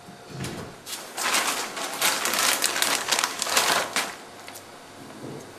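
A bag rustling as the pieces of a ball bearing that blew apart are tipped out, with small clicks of loose steel balls and parts landing on a concrete floor. The rustling is busiest in the middle and dies away after about four seconds.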